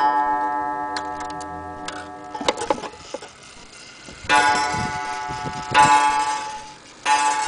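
Antique German strike wall clock striking: the ring of a strike dies away over the first few seconds while the clock ticks faintly. Three more strikes follow in the second half, about a second and a half apart, each ringing on until the next.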